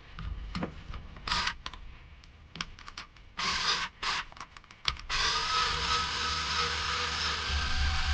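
Small electric screwdriver running in short bursts while driving small screws into an RC car, with light clicks of parts being handled. About five seconds in, a steady whirring noise takes over.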